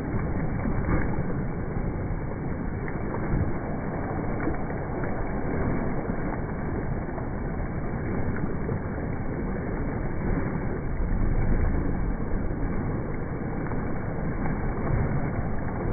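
Continuous splashing and churning water from a swimmer's flutter kick in a pool.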